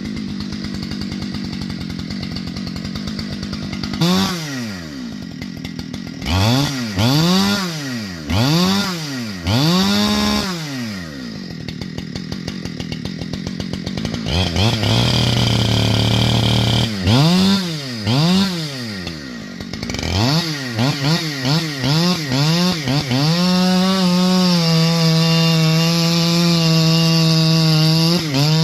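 Two-stroke chainsaw revved up and down repeatedly, several quick throttle blips. Near the end it settles into a steady high-speed run, as when cutting firewood.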